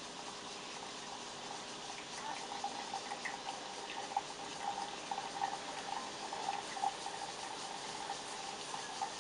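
Pour-over coffee brewing: hot water poured in a thin stream from a stainless steel flask into a paper-filter dripper, and liquid trickling through in a light, uneven splashing that starts about two seconds in and goes on after the pour stops. A steady background hiss runs under it.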